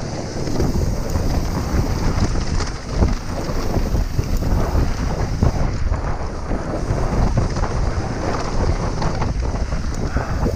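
Wind buffeting the camera microphone over the rumble of a Trek Remedy full-suspension mountain bike descending a dirt trail at speed, with tyres rolling on packed dirt and the bike rattling over bumps throughout.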